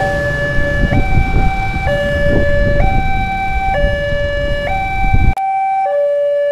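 Railway level crossing warning alarm sounding an electronic two-tone signal, switching between a lower and a higher pitch about once a second. A low background rumble under it cuts off suddenly about five seconds in.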